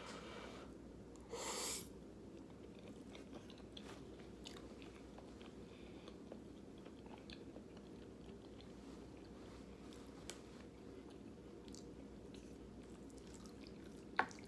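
A person chewing a mouthful of chili and rice, quiet wet chewing with small mouth clicks over a steady low hum. A brief louder noisy sound comes about a second and a half in, and a sharp click near the end.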